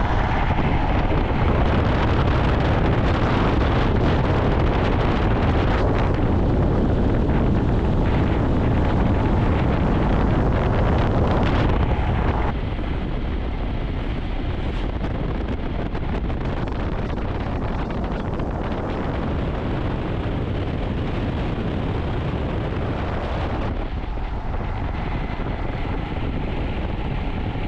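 Wind rushing over the microphone while riding a Royal Enfield Himalayan, its single-cylinder engine running underneath. The sound steps down in loudness about halfway through.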